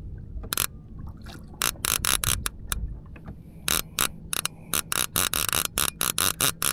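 Conventional saltwater fishing reel clicking in irregular runs of sharp clicks, sparse at first and coming faster after about three and a half seconds, while a large fish on the line pulls against it. A low rumble of water and wind lies underneath.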